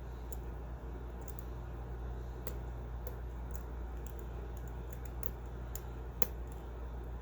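Lock pick and tension wrench clicking and ticking irregularly against the pins of an old Ace solid brass padlock, with one sharper click about six seconds in, over a steady low hum.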